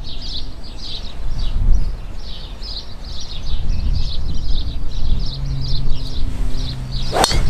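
Small birds chirping rapidly and continuously over a low wind rumble. Near the end, one sharp crack as a golf driver strikes the ball off the tee.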